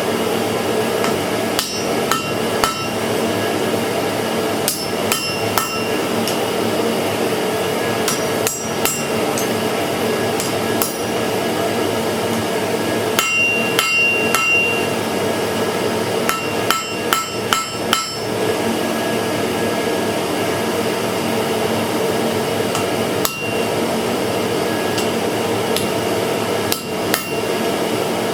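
Blacksmith's hammer striking hot iron on an anvil in irregular bursts of blows, some blows ringing briefly, with a steady hum running underneath.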